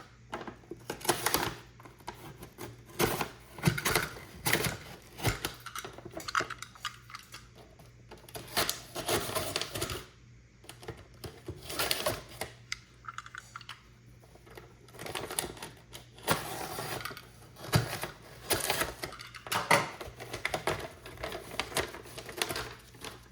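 Paper wrapping being torn and crinkled off the top of a 500g firework cake, in irregular rips and rustles with short pauses between.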